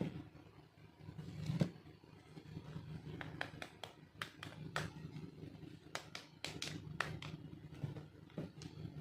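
Small plastic toy pieces being handled: a string of light clicks and taps, scattered at first and coming thick and fast about two thirds of the way in, over a low steady hum.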